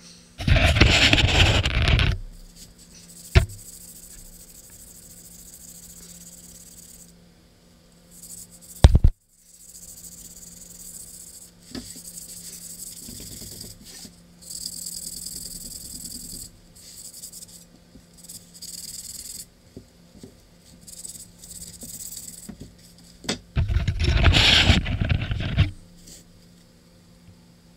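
Rust being scrubbed off a steel sword blade by hand: two spells of rough scrubbing, each about two seconds, one near the start and one near the end, with fainter rubbing between. A single sharp knock comes about a third of the way in.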